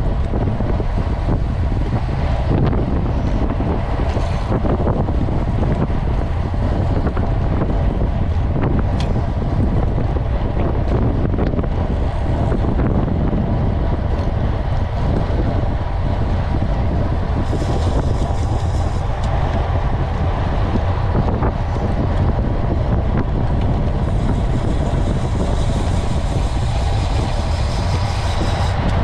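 Steady wind buffeting the microphone of a road bike's onboard camera at about 40 km/h, a loud rumbling rush. A higher hiss comes in briefly about two-thirds of the way through and again near the end.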